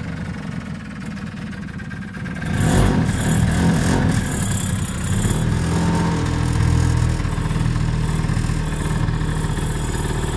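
Small engine of a Shopper moped car running, getting louder about two and a half seconds in and then holding steady.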